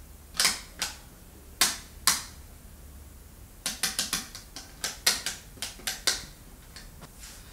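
A run of sharp clicks and knocks: a few spaced singly in the first two seconds, then two quick irregular clusters from about three and a half seconds in.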